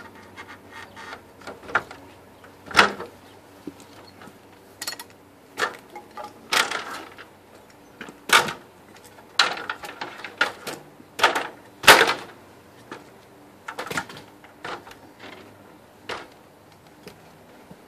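Irregular knocks and clatters of framing work: a stepladder being moved and wood pieces being handled and set against the frame, with three louder bangs among lighter taps.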